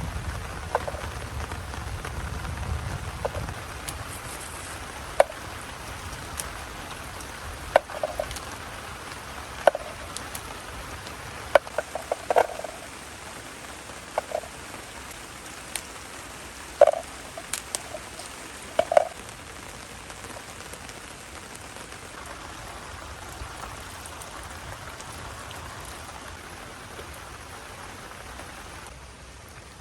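Steady rain falling, with a dozen or so sharp single ticks standing out over it, scattered through the first two-thirds and then stopping.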